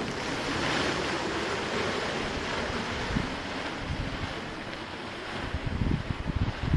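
Large woven bulk bag dragged across a gravel drive: a steady scraping hiss that rises as the pulling starts and eases as the bag moves away. Low wind rumble buffets the microphone near the end.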